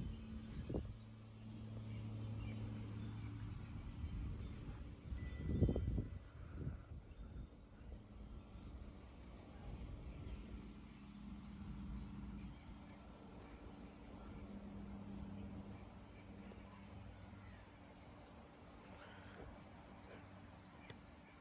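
Low steady drone of a Beech 58TC Baron's twin piston engines and propellers, slowly fading as the aircraft draws away. Over it a cricket chirps steadily, about two to three pulses a second, with a few low bumps in the first several seconds.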